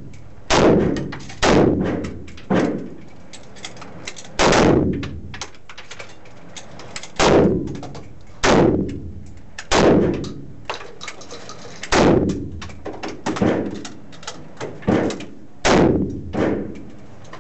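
Gunfire in an enclosed indoor firing range: a dozen or so single shots spaced unevenly, about a second or two apart, each followed by a short ringing echo off the walls.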